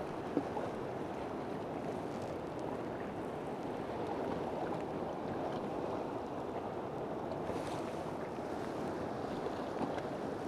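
Steady wash of sea waves against a rocky shore, with one small tick about half a second in.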